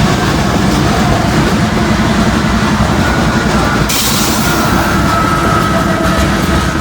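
CSX freight train passing close by behind a consist of eight diesel locomotives, engines running and wheels rumbling on the rails, all of the locomotives sounding as if they are under power. A faint steady whine comes in about three seconds in, and a hiss joins about four seconds in.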